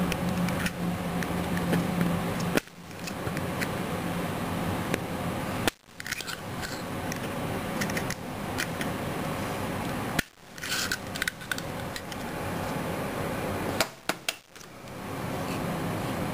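Small clicks and scrapes of a metal pick working the spring-loaded magazine catch inside a KSC Glock 18C airsoft pistol frame, over a steady background hiss. The sound cuts out abruptly for a moment several times.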